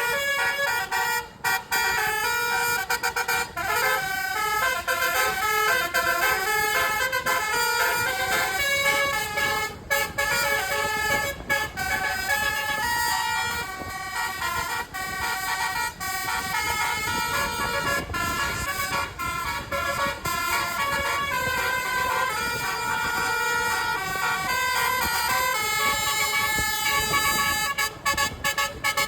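Telolet bus horns, multi-trumpet air horns, playing a melody of stepped notes that change several times a second, with a few brief breaks.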